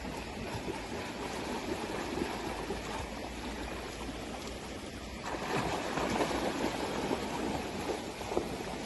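English cocker spaniel running through shallow river water, its legs splashing over a steady wash of water; the splashing grows louder and busier about five seconds in.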